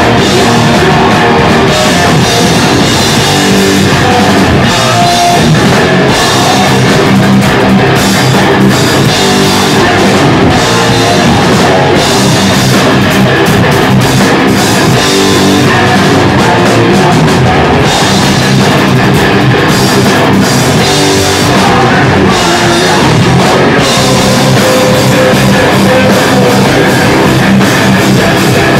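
A band playing loud heavy rock live, with guitars and a drum kit going without a break.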